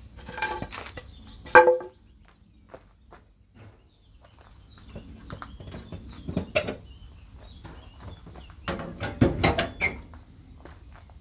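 A series of knocks and clunks from work on a Citroën 2CV as its bonnet is lowered. The loudest comes about one and a half seconds in and a cluster follows near the end, with birds chirping in the background.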